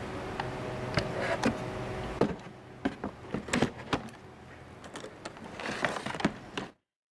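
Cardboard packaging being handled: scattered rustles and light knocks over a steady low hum that drops away about two seconds in. The sound cuts off abruptly near the end.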